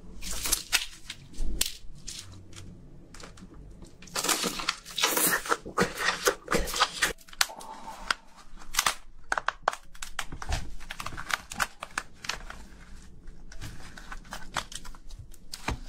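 Cooked crustacean shells being cracked and torn apart by hand: a dense, irregular run of crunches, snaps and tearing.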